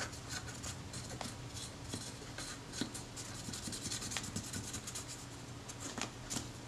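Fingertips rubbing and picking old adhesive residue off the bare metal body of a Kodak Retina IIIS camera: soft, irregular scratching with many small ticks.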